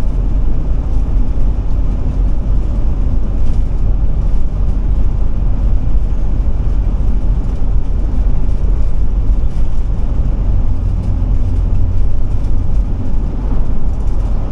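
Steady drone of a Ford E450-chassis motorhome cruising at highway speed, heard from inside the cab: the Triton V10 engine and road and tyre noise, deep and even with no changes.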